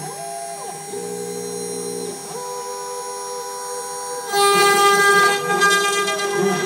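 CNC router carving wood: a steady whine in held tones that stop and change pitch as the machine moves. About four seconds in it grows louder, with the harsh hiss of the bit cutting into the timber.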